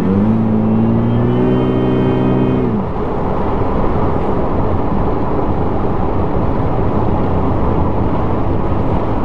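Supercharged Toyota 1GR-FE V6 accelerating hard, its note rising for the first second and a half and then holding, with a higher whine over it. The engine note drops away just under three seconds in, leaving steady road and wind noise.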